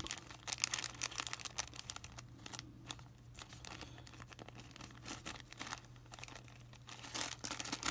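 Small clear plastic zip-lock bag crinkling as it is handled, a run of light crackles that is busiest in the first two seconds and again near the end, sparser in between.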